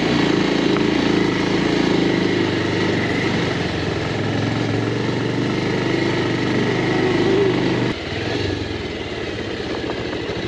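Motorcycle engine running steadily under way, then dropping to a quieter, lower note about eight seconds in as the throttle eases off.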